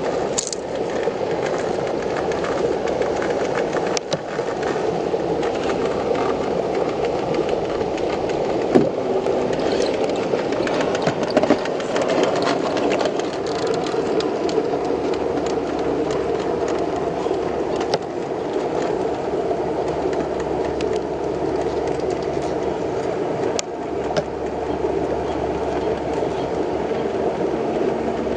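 Traxxas TRX4 scale RC crawler with a Hobbywing Quicrun Fusion motor, its motor and geared drivetrain whirring steadily as it crawls over rock, with a few sharp knocks of tyres and chassis on stone.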